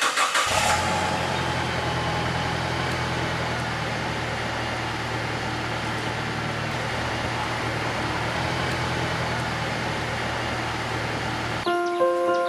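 A motor-vehicle engine idling steadily just after starting. It cuts off suddenly near the end, and music with sustained notes comes in.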